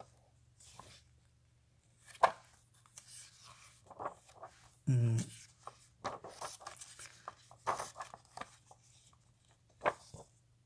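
Paper comic book being handled and its pages turned: soft scattered rustles with a sharp click about two seconds in. About five seconds in a man gives a brief murmur.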